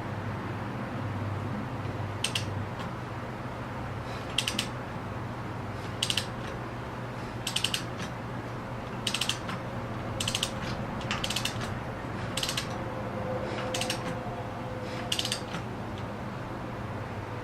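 Socket ratchet clicking in about ten short rattles, one every second or two, as the crankshaft is turned by hand to bring the timing marks to top dead centre for cylinder one. A steady low hum runs underneath.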